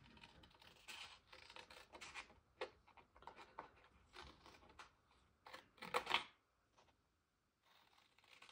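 Small, very pointed detail scissors cutting a paper label strip: a series of faint snips and paper rustles, the loudest about six seconds in. The small scissors are hard going on the strip.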